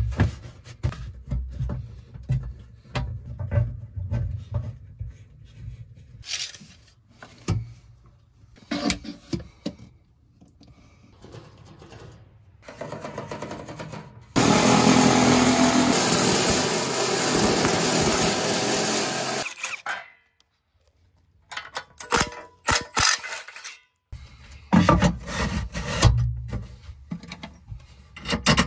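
Aluminium diamond-plate sheets being handled and fastened: scattered metallic clatter and knocks. About midway a power tool cutting the plate runs loudly and steadily for about five seconds, starting and stopping abruptly.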